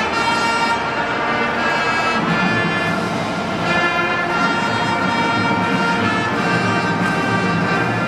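Marching band playing, the brass holding long chords that change every second or two.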